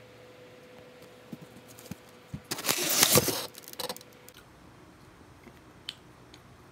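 A cardboard fruit box being opened and its contents handled: a rustling, scraping burst of about a second near the middle, with a few light knocks before and after.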